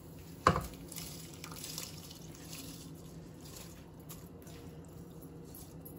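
Soaked rice poured from a glass bowl into a pot of boiling water, splashing and bubbling, with a sharp knock about half a second in.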